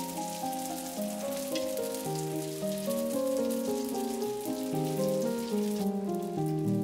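Background music with a melody of held notes, over the crackling sizzle of brick-pastry samosas shallow-frying in hot oil in a pan; the sizzle drops away near the end while the music carries on.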